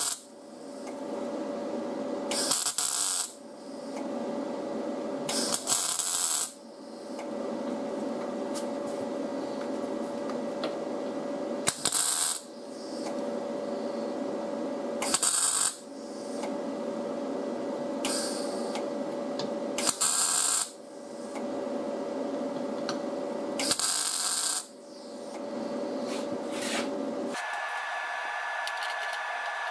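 MIG welder laying short tack welds on sheet-steel body panel: six loud crackling bursts, each about half a second to a second long, a few seconds apart, with a steady hum in between. The welds attach metal along the panel's body lines so the dent can be pulled out.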